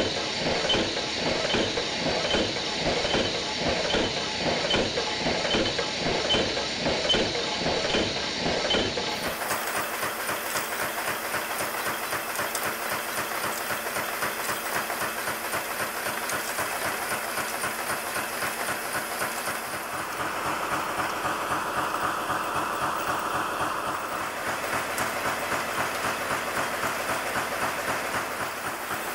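Steel nail-making machinery running: a fast, steady mechanical clatter over a hiss, with a regular tick of about two a second at first. The sound changes abruptly about nine seconds in and again around twenty seconds in.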